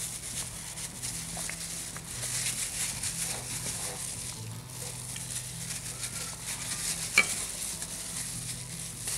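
Hands squishing and rubbing an oily mustard-and-vinegar marinade into pieces of fish in a bowl, a soft wet crackling rustle. There is one sharp click about seven seconds in.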